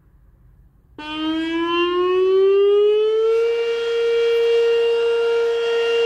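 Whelen WPS 2810 electronic tornado siren sounding its steady Alert tone in a test. It starts abruptly about a second in, rises in pitch for about two and a half seconds, then holds one steady pitch.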